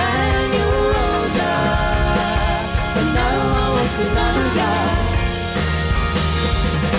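A live pop band plays electric guitar and drums under a woman singing, with a steady full-band sound and drum hits through it.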